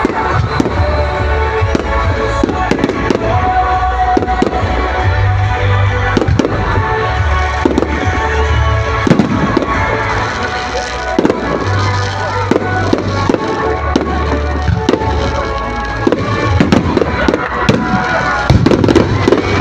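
Aerial fireworks shells launching and bursting in quick succession, a steady run of bangs and crackles, over loud music with a heavy bass line.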